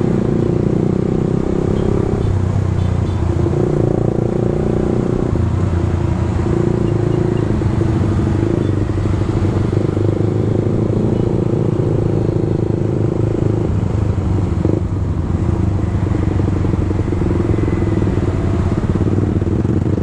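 Suzuki GSX-R150's single-cylinder engine running steadily under way, its pitch shifting only slightly with the throttle.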